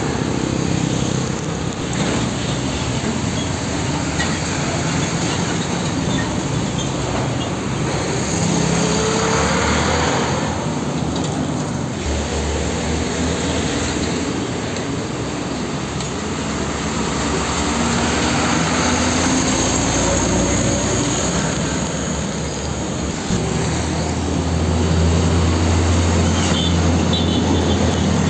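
Heavy diesel trucks driving past at the roadside: steady engine hum and tyre noise over general road traffic, swelling as each truck goes by.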